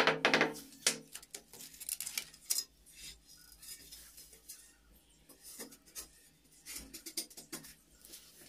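Ceramic floor tiles, 12 by 12 inches, clinking and knocking against each other and the floor as one is picked up and set in place. The sound comes as scattered light clicks and taps in two loose clusters.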